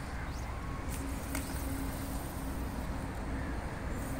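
Steady low outdoor background rumble, with a faint steady hum through the middle and a couple of faint ticks.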